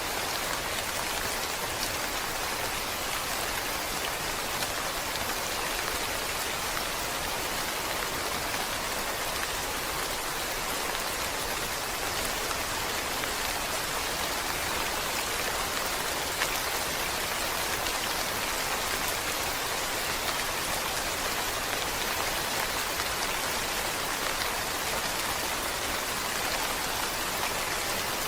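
Steady rain falling, an even, unbroken hiss of many drops that neither builds nor eases.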